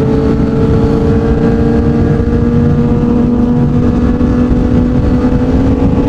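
Yamaha MT-09's three-cylinder engine through a Yoshimura R55 slip-on exhaust, running under steady throttle on the road, its note held even and rising slightly as the bike gently gains speed.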